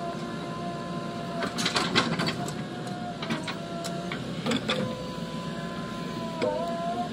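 A backhoe loader's diesel engine and hydraulics are running with a steady high whine that sags briefly in pitch twice, as if under load. Metal clanks and knocks come in a cluster about two seconds in, with a few more later.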